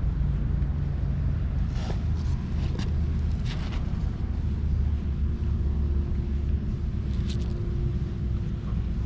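A plastic comb-like tool patting and stroking a cat's fur, heard as a few short rustles about two, three, three and a half and seven seconds in, over a steady low rumble.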